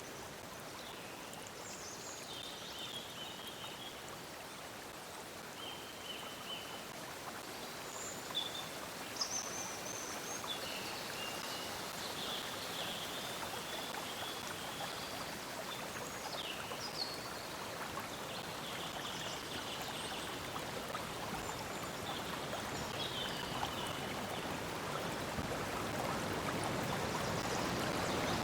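A stream of water flowing steadily, growing slowly louder toward the end, with small birds chirping and calling in short high phrases over it every second or two.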